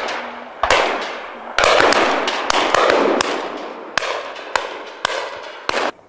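Shotguns firing a ragged volley of about ten shots from several guns, each report followed by a long rolling echo.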